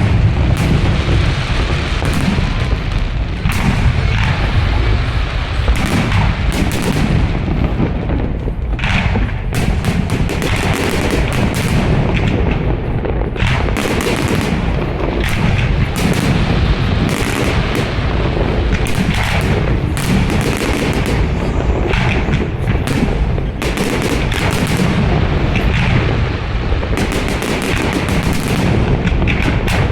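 Fireworks display: a dense, unbroken barrage of shell bursts and bangs, many overlapping, at a steady loud level.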